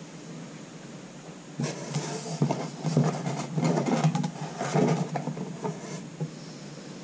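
Sports cards being handled and sorted: a run of rustling and light clicks for about four seconds, starting about a second and a half in, over a steady hiss.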